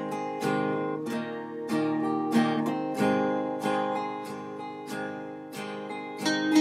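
Background music: an acoustic guitar strummed in a steady, even rhythm.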